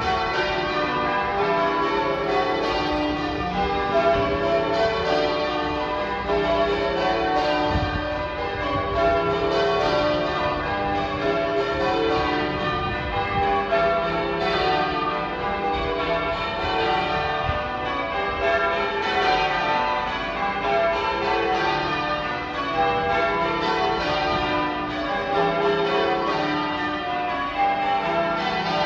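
Manchester Cathedral's tower bells being rung in changes: a continuous stream of overlapping bell strokes, each note ringing on into the next.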